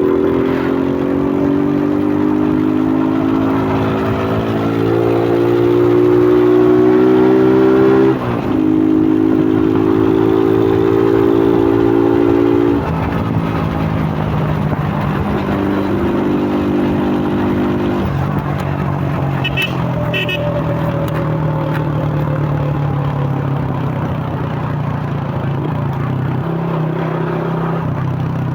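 2001 Suzuki Fiero motorcycle's single-cylinder four-stroke engine, breathing through a K&N RC1060 air filter, on the move: it rises in pitch for about eight seconds, dips briefly as it shifts up, and rises again. About thirteen seconds in the throttle eases and it runs on at steady lower revs.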